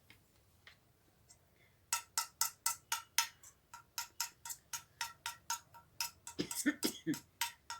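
A spoon clinking rapidly against a small bowl while stirring honey into ginger juice, about five ringing clinks a second. The clinking starts about two seconds in, after a near-quiet stretch.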